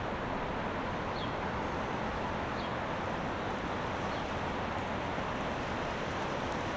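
Large motor yacht cruising slowly, a steady rumble of its engines mixed with water moving along the hull.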